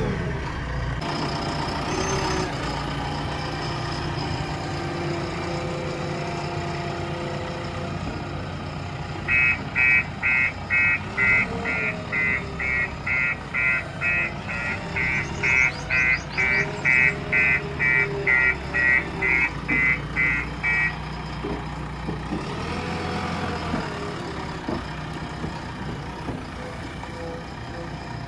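JCB 3DX backhoe loader's diesel engine running steadily, with its reversing alarm beeping about twice a second from about nine seconds in until about twenty-one seconds in.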